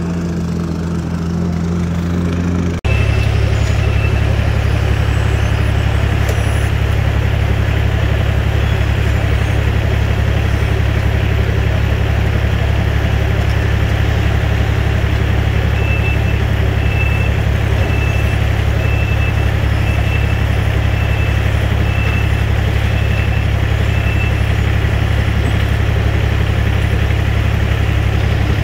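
Heavy paving equipment's diesel engine running steadily under load, louder after a sudden change about three seconds in. Partway through, a reversing backup alarm beeps evenly about one and a half times a second for several seconds, and once more near the end.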